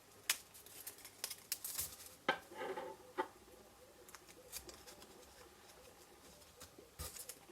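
Paper and card being handled: light rustling and a few sharp little clicks and taps as small punched paper butterflies are fixed with mini glue dots and pressed down onto a card pouch, with a short cluster of taps near the end.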